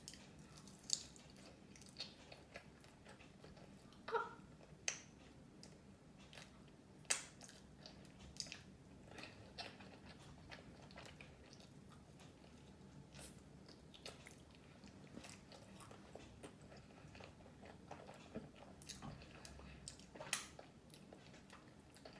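Close-up eating sounds: chewing and biting on fried food, with scattered short crunches and mouth smacks over a faint steady hum.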